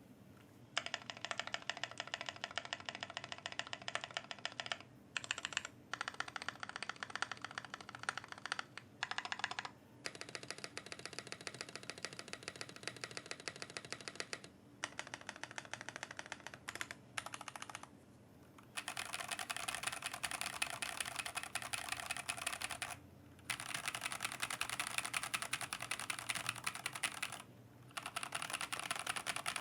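Rapid typing on a Glorious GMMK Pro keyboard with Glorious Panda tactile switches on an aluminium plate and KBDfans NP-profile keycaps, dense key clacks in runs broken by about five short pauses.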